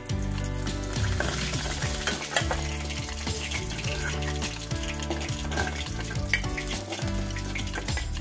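Pieces of fried fish sizzling in hot oil in a metal kadai while a metal spatula scrapes the pan and lifts them out, with scattered sharp scrapes and taps over the steady crackle of the oil.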